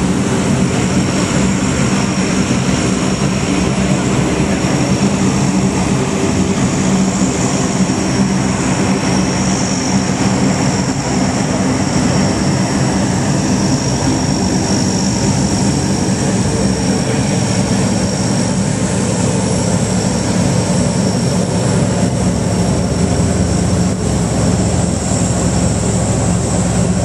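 Turboprop military transport plane's engines running steadily as it taxis: a steady propeller drone with a high turbine whine over it.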